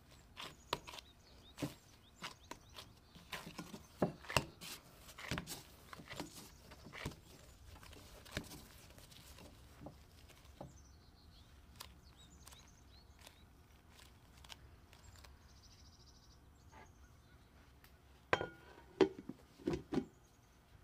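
Gloved hands kneading a ball of dough in a glass bowl: soft, irregular taps and thumps against the glass, thick for about the first ten seconds and then sparse. Near the end come a few louder knocks as a lid is set on the bowl.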